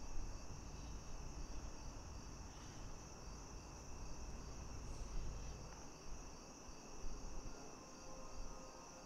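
Crickets chirping in a steady high trill over a low, even rumble of background noise.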